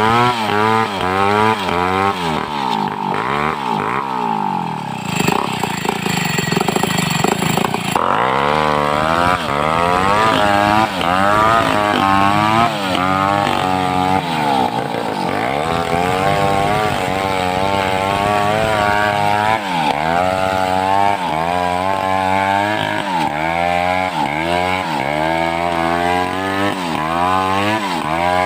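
Homemade two-stroke chainsaw cutting lengthwise through a mindi log, its engine pitch dipping under load and recovering over and over, about once a second, with a steadier stretch a few seconds in.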